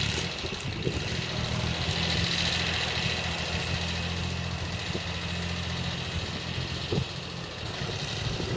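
Iseki TX2160 compact tractor's small three-cylinder diesel engine running steadily while the tractor pulls a loaded trailer through deep mud.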